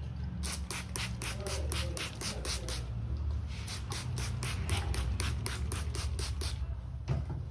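Razor scraping hair off a head in quick short strokes, about four or five a second, with a brief pause about three seconds in.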